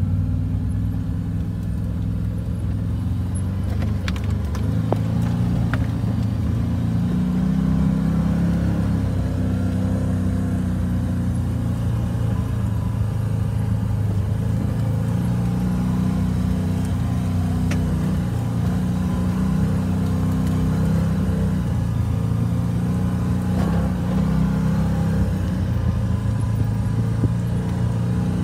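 Can-Am Maverick Sport X RC side-by-side's Rotax V-twin engine running as it drives a dirt trail, its pitch rising and falling with the throttle. A few sharp clicks are heard over the engine.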